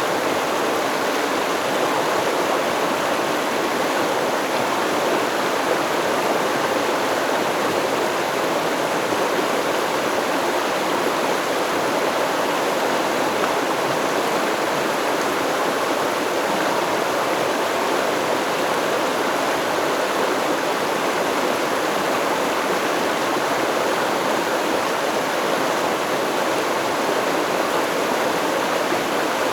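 Steady rush of a flowing river stream, an even, unchanging water sound with no birds or music.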